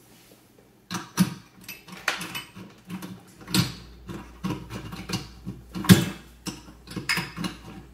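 Irregular clicks and clatter of a metal nozzle being taken off and a larger one fitted on a hot air rework gun, with the sharpest knock about two-thirds of the way through.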